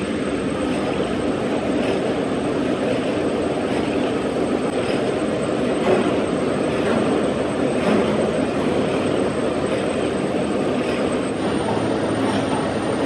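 Gear hobbing machine running, its hob cutting helical teeth into a steel pinion shaft: a steady mechanical drone with a faint regular knock about once a second.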